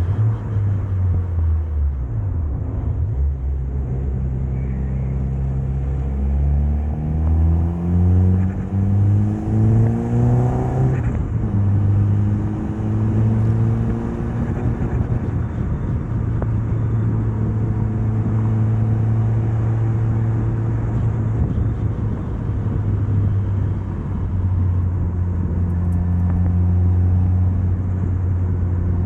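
Mitsubishi Lancer Evolution's turbocharged 4G63 inline-four engine under way: the engine note climbs steadily from about six to eleven seconds in, drops off abruptly, then holds a steady note at lower revs.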